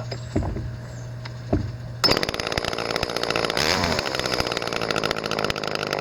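Two-stroke gas chainsaw idling, then opened up to high revs about two seconds in and held there, the pitch wavering a little. It is freshly started on new fuel and runs well.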